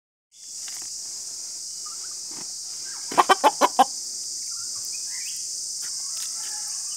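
Rooster clucking: a quick run of five sharp, loud clucks about three seconds in, then a few softer calls, over a steady high-pitched hiss.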